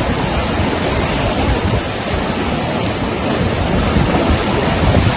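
Fast-flowing floodwater rushing, a loud, steady noise of turbulent water.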